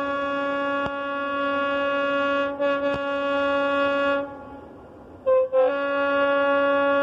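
A DF7G-C diesel locomotive's horn blowing one long, steady blast that breaks off about four seconds in. After a short gap come two short, louder toots at a different pitch, then the long blast sounds again.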